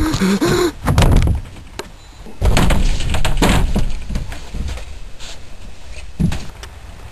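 Knocks and bangs on the wooden planks of a shed. A couple come about a second in, a dense cluster follows from about two and a half to three and a half seconds, and one more thump comes near the end.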